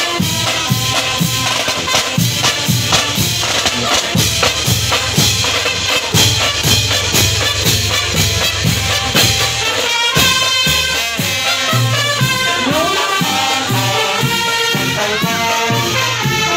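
Marching band of trumpets, saxophones, horns, sousaphones and snare drums playing a march, with a steady drumbeat; the horns' melody comes through much stronger from about ten seconds in.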